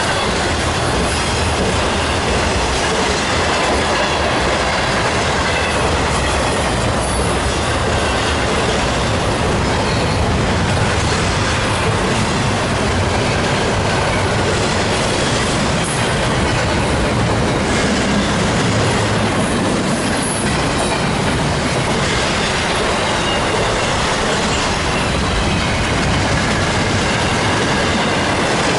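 A train rolling past close by with a continuous steady rumble of wheels on rails. Faint high-pitched wheel squeal runs over it.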